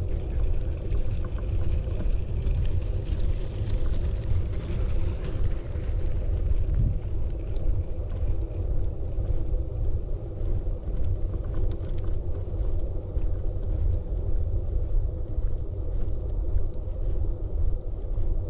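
Steady low outdoor rumble, with a faint hiss that swells and fades about three to six seconds in.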